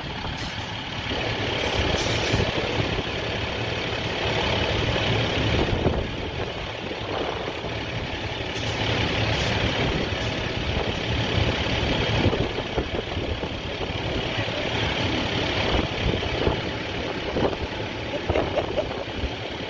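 Fire truck's diesel engine idling under the steady hiss of a fire hose spraying water onto the ladder truck.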